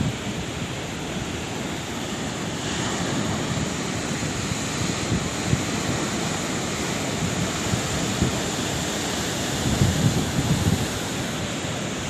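Sea waves breaking on the shore: a continuous wash of surf that swells a few seconds in and surges loudest near the end, with low wind buffeting on the microphone.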